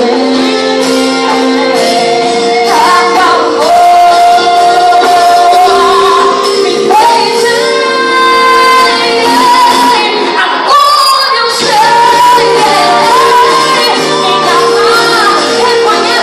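Live gospel worship song: a woman singing long, sliding melodic lines over a band, with reverberation from a large hall.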